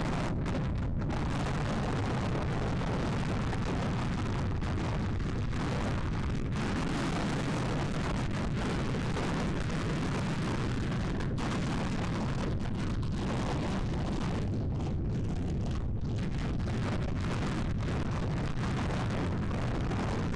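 Strong wind buffeting an outdoor webcam's microphone: a loud, steady rush of noise, deepest and heaviest in the low end.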